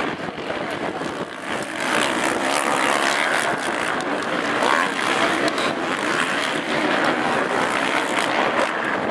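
Several racing quad (ATV) engines running together at high revs, their pitch rising and falling as the riders accelerate and back off around the motocross track.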